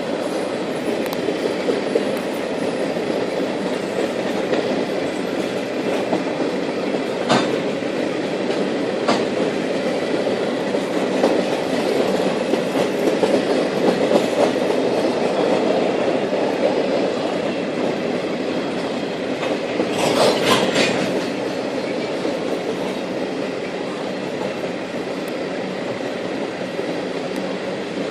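Freight train cars rolling past on the rails in a steady rumble, with occasional sharp clanks and a louder cluster of them about twenty seconds in.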